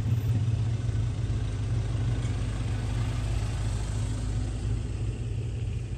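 Motor vehicle engine running at a steady low hum while driving along a dirt track.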